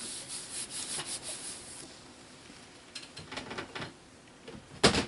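A hand rubbing and smoothing firmly across a paper journal page, a hissy scraping that eases off after about two seconds into lighter rustles. A single sharp knock near the end.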